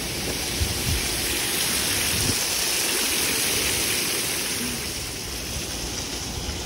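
Water spraying from an outdoor water arch: a steady rain-like hiss that swells over the first couple of seconds and eases off toward the end.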